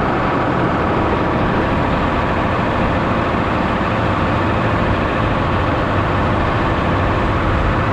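Tractor engine running steadily while its front-loader snow bucket pushes a load of snow.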